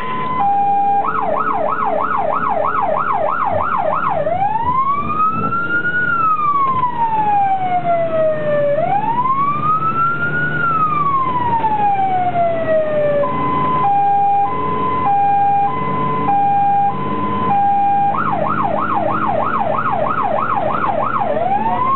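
Fire truck's electronic siren heard from inside the cab, cycling through its modes: a two-tone hi-lo, then a fast yelp from about a second in, then two slow rising-and-falling wails. Near the middle it drops back to hi-lo, then yelp, then a wail again. The truck's engine runs underneath.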